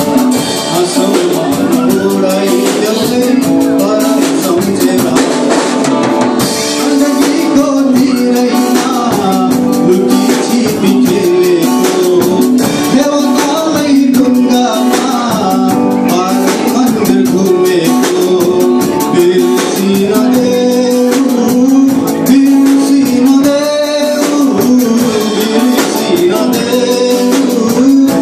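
Live band playing a Nepali song: a man singing into a microphone over electric guitars, bass, drum kit and a madal hand drum.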